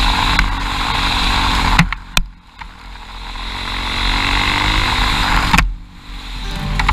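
Small off-road vehicle engine running on a dirt trail, with wind noise on the microphone. The sound drops away sharply about two seconds in and again near the end, each time building back up, with a couple of knocks around the first drop.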